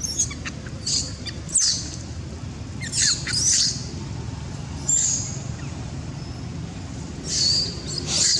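A young female macaque's shrill distress screams as she is attacked by the dominant male: about seven short, high-pitched cries, some sliding down in pitch, coming every second or two. A steady low rumble of background noise runs underneath.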